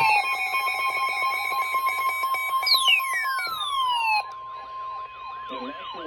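Emergency alert tones from several receivers sounding at once: a steady single-pitch alarm tone, typical of the weather-radio warning alarm, held throughout. Repeated falling sweeps and fast warbling chirps are layered over it, and these stop abruptly about four seconds in, leaving the steady tone with a lighter warble.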